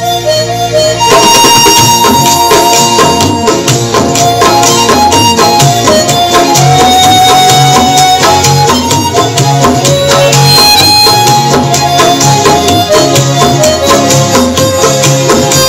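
Harmonica playing a song melody, held in cupped hands, over a backing track with a steady rhythmic percussion beat. The music picks up again about a second in after a brief dip.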